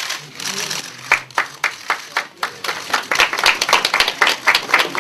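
A small group of people clapping their hands: a few separate claps about a second in that build into steady applause.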